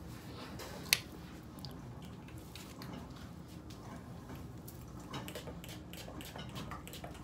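Quiet room tone from a ceiling fan running on low, with faint rustling and small clicks of handling throughout and one sharp click about a second in.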